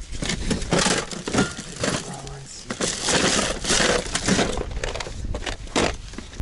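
Gloved hands rummaging through fishing gear in a packed car boot: plastic bags rustling and crinkling, with repeated knocks and clatters of metal and plastic gear being shifted.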